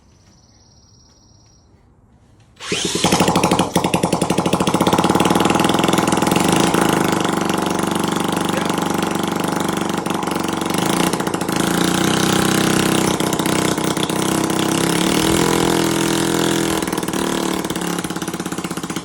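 Honda Z50's 50cc four-stroke single-cylinder engine firing up about three seconds in and running loud and fast with its exhaust not yet fitted, the revs wavering. It is stuck at a high idle: either an air leak or a stuck throttle.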